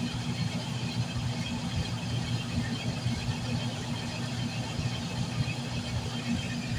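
Washing machine in its spin cycle, the motor and drum running at speed with a steady hum and a fluttering rumble.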